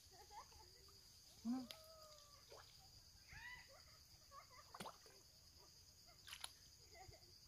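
Faint, short squeaky chirps from a baby otter swimming in a shallow puddle, a few scattered calls, over a steady high drone of insects.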